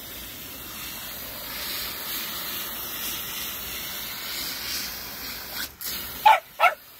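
Water from a garden hose spraying and splashing into a clay flower pot with a steady hiss. Near the end the water sound drops away and a small dog gives two short, sharp yips.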